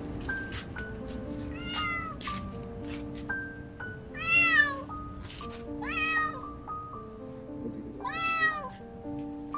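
A kitten meowing in distress: four drawn-out cries, each rising then falling in pitch, the second the loudest. Background music with held notes plays underneath.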